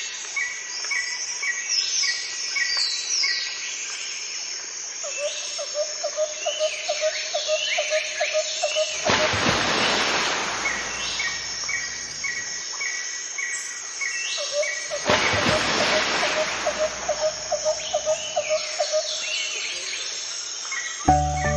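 Nature ambience of birdsong, many short falling chirps and a row of quick repeated high notes, with an insect-like pulsing trill that comes in twice and two swells of rushing noise like wind. The pattern repeats, as in a looped ambience track, and music begins at the very end.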